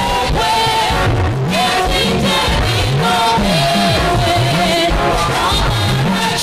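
Live gospel worship music: a church band with a walking bass line and drums backing a sung melody.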